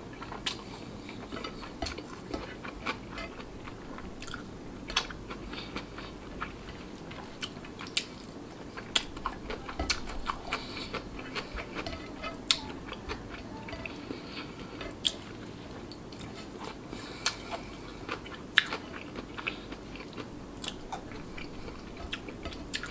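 Close-miked chewing of rice, wet and soft, with many short sharp mouth clicks and lip smacks scattered irregularly throughout.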